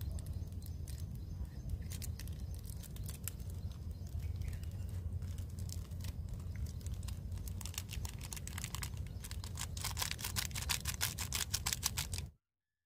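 Plastic seasoning sachet from a Maggi noodle pack crinkling and crackling as it is torn open and shaken out over a steel pot, the crackle densest in the last few seconds, over a steady low rumble. The sound breaks off suddenly near the end.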